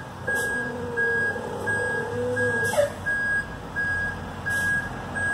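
Back-up alarm of a reversing motorhome beeping steadily, about two beeps a second, over the low running of its engine.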